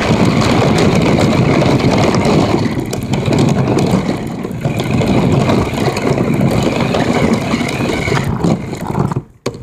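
RC car running on pavement, a loud rough rumble of its motor and wheels with a faint steady whine, cutting off abruptly near the end.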